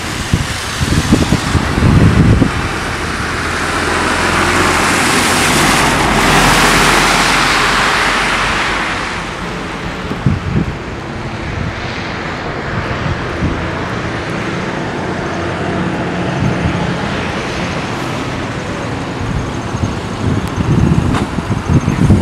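Traffic on a wet, slushy road: a passing vehicle's tyre hiss through the slush swells a few seconds in and fades away, over a steady traffic hum. Wind buffets the microphone near the start and near the end.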